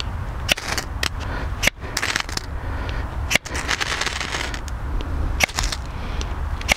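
Small ferrocerium fire steel being scraped hard with a steel edge, a series of quick, sharp, irregularly spaced rasping strikes that throw sparks. The rod works, but only gives off a few shavings because it is small.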